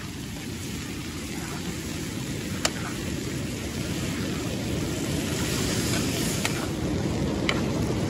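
Pork frying in a steel kadai over a wood fire: a steady sizzling rush that slowly grows louder, with a few sharp clinks of the metal ladle against the pan.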